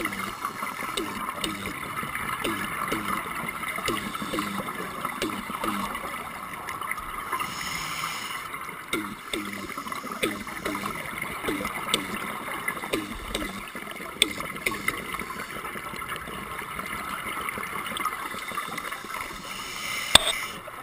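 Underwater ambience picked up through a camera housing: steady gurgling, bubbling water noise, with one sharp knock near the end.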